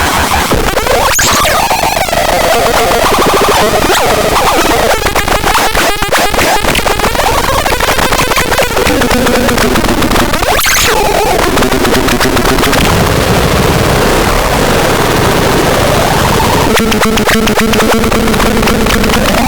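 Harsh electronic noise: a loud, dense wall of distorted noise with rapid stuttering clicks, shifting held tones and quick pitch sweeps, about one and ten seconds in.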